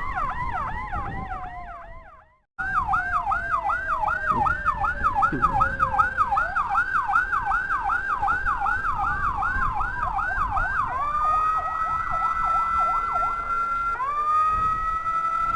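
Electronic siren on an escort motorcycle sounding a rapid yelping chirp, about three a second, over a slowly falling tone. It then switches to a steady high wail that dips and climbs back once near the end. The siren fades out and cuts back in abruptly about two seconds in.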